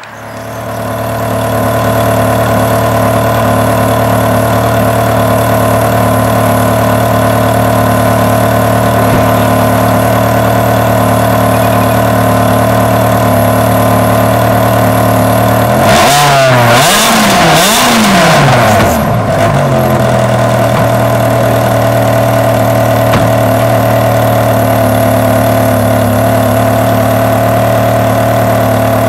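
Ferrari 360 Challenge Stradale's 3.6-litre V8 idling steadily. About two-thirds of the way through it is blipped twice in quick succession, the pitch rising and falling each time, and then it settles back to idle.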